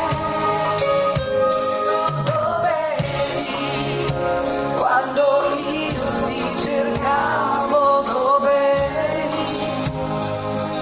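Live pop band playing with a woman singing the lead melody, drums keeping the beat, during a stage sound check.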